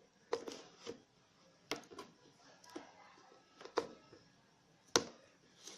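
A cardboard product box being handled and worked open by hand: a handful of separate light clicks and knocks, about six, with faint rustling between them and the sharpest click near the end.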